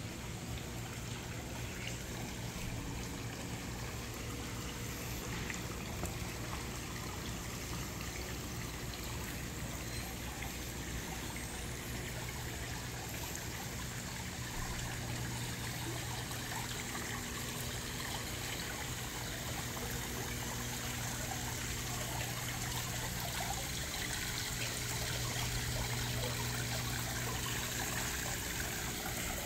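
Water trickling and splashing down a small rock cascade into a garden pond, growing a little louder toward the end, over a steady low hum.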